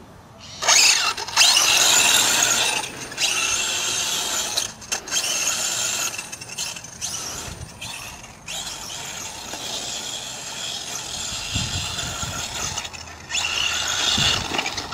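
Brushless electric RC buggy with a 3660 motor driving across grass: a high-pitched motor and gear whine that surges and eases with the throttle. It starts about a second in, cuts back briefly several times and dips for a moment near the end. The pinion-to-spur gear mesh is set a little tight.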